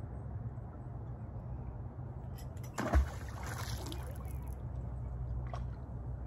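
A magnet-fishing magnet smacking into the lake water about three seconds in, a sharp splash followed by a second or so of spray, over a steady low background rumble.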